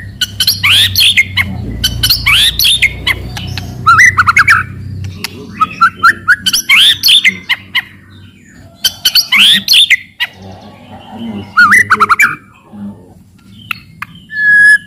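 White-rumped shama (murai batu) singing in short, loud phrases about every two seconds. Each phrase mixes sharp clicking cetrekan notes with quick whistled glides. A low hum in the background stops about five seconds in.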